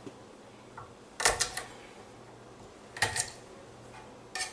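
Kitchen utensils clinking and knocking on a work table in three short bursts, the first a quick run of several clicks.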